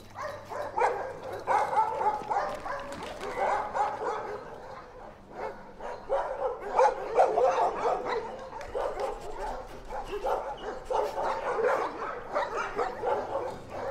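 Service dogs in kennel runs barking, one bark after another with hardly a pause.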